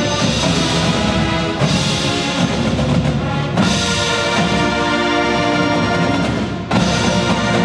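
Marching band playing loud, sustained brass chords over percussion, with a new chord struck about a second and a half in, again about three and a half seconds in, and once more near the end after a brief drop in loudness.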